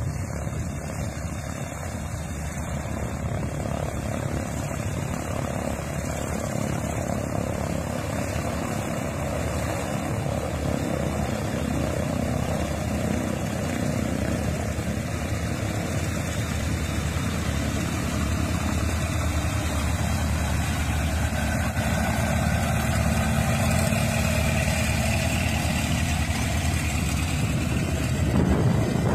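Twin-engine Tecnam P2006T taxiing, its two propeller engines running at low taxi power and growing gradually louder as it nears.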